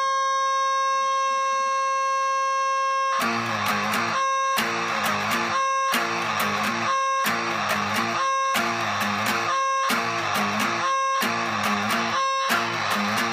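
Electric guitar (Gibson SG '61 reissue, neck pickup) through a Z.Vex Fuzz Factory germanium fuzz pedal into a Roland Cube 30 amp. A steady, buzzy high tone holds for about three seconds, then fuzzed chords are struck in a steady rhythm, about one every second and a quarter, with the held tone coming back in each short gap between them.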